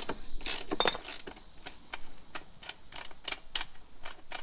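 A hand ratchet with a 34 mm socket clicks as the loosened rear axle nut is turned off. The clicks come at about three a second and are louder in the first second.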